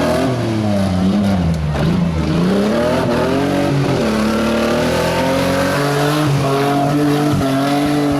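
Off-road race vehicle's engine revving hard, the pitch dipping and climbing repeatedly, then holding a higher steady note from about halfway through.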